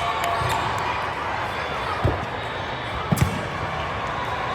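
Volleyball thumps in a gymnasium: a single thud about two seconds in, then two quick thuds a second later, over a steady background of voices and gym noise.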